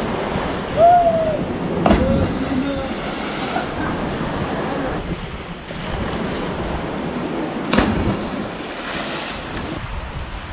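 Wind rushing on the microphone over sea surf breaking against a rocky cliff. About a second in there is a short rising-and-falling call, and there are two sharp knocks, one about two seconds in and one near eight seconds.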